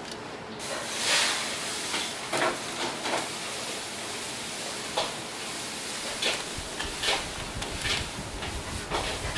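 Scissors snipping through a deep-fried mantis shrimp's crisp shell: a series of short crunchy cuts, roughly one a second, over a steady hiss. A low rumble joins in after about six and a half seconds.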